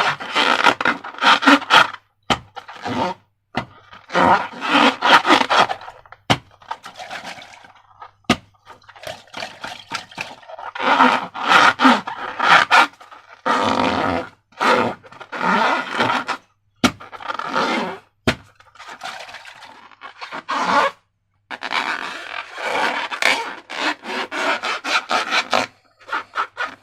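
Slime being squished, stretched and mixed by hand, in repeated bursts of squelching with short gaps and sharp clicks between them.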